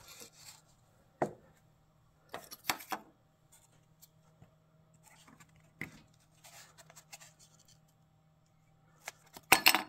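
A few light clicks, scrapes and rustles of a cut-open oil filter's pleated paper element and its loose metal end cap being handled, with the loudest handling noises near the end.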